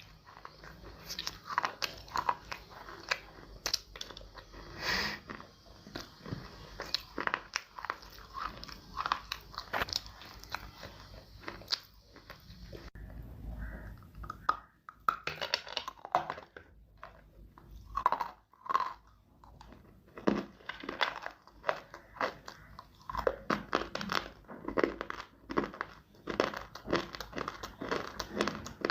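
Close-up biting and chewing of hard, dry edible clay: a quick run of sharp crunches and crumbling, with a short thinner stretch a little past the middle.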